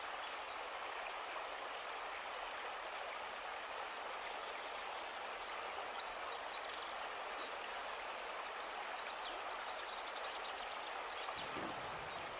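Steady, even rushing noise like running water, with faint high chirps scattered through it.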